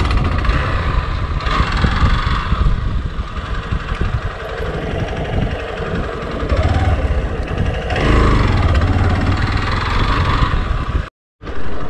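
Hero XPulse 200's single-cylinder engine running as the motorcycle rides over a rough, rutted dirt track, with a rumbling, buffeting background. The sound cuts out briefly near the end.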